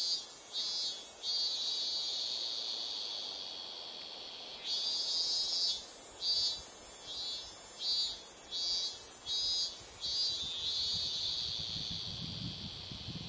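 Insects shrilling in a chorus, a high buzz that pulses on and off about twice a second, with a couple of longer unbroken stretches.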